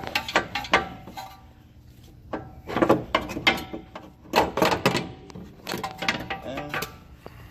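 Irregular metal clunks, knocks and scrapes as a car's suspension strut is worked loose and pulled out of the wheel well.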